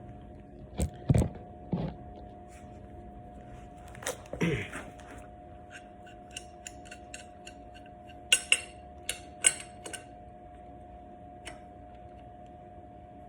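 Metal tools and parts being handled for a motorcycle oil change, clinking and knocking: a few dull knocks, then light ticks and a run of sharp metallic clicks, over a faint steady hum.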